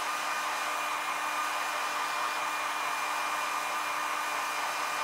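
Handheld hair dryer running steadily on a dab of leather paint to dry it: an even rush of air with a constant motor whine.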